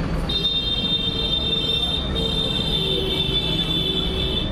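Road traffic rumbling steadily, with a high-pitched steady tone from a passing vehicle that sounds for about two seconds, breaks off briefly, then sounds again.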